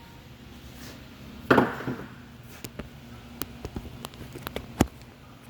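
Scattered light clicks and taps of hand tools and metal brake parts being handled, with one short louder sound about one and a half seconds in.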